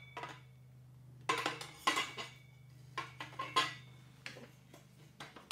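Tubular metal table-saw stand parts clinking and knocking against each other as they are fitted together, a string of short irregular knocks over a few seconds, over a low steady hum.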